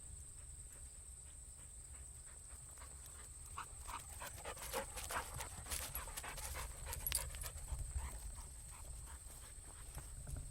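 A dog panting close by, the breaths and small clicks clustered in the middle of the stretch, over a low steady rumble.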